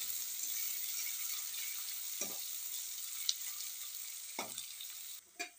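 Sliced onions sizzling as they fry in hot mustard oil in a kadai, with three short strokes of the spatula stirring them. The sizzling cuts off suddenly shortly before the end.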